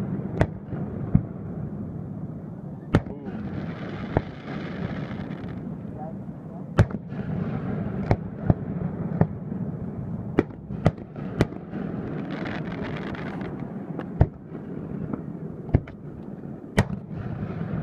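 Aerial fireworks shells bursting in a display, about fifteen sharp bangs at irregular intervals, each ringing on briefly as it echoes back across the lake. Twice a fizzing hiss lasts a second or two between the bangs.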